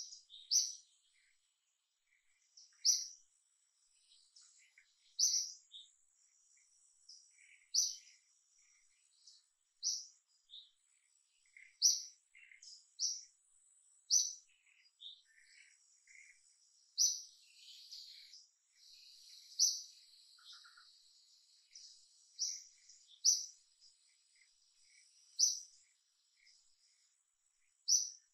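Birds calling: short, sharp high chirps repeated every two to three seconds, with fainter calls in between. A faint steady high whine of insects runs underneath.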